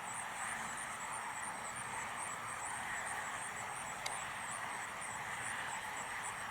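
Steady outdoor background noise with a rapid, even, high-pitched pulsing chirp running through it, about four or five pulses a second, and one faint click about four seconds in.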